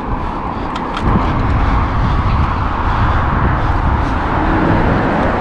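Steady rushing noise of riding a bicycle beside a road with traffic: wind on the microphone and road noise, with a heavy low rumble that grows louder about a second in, and a few light clicks.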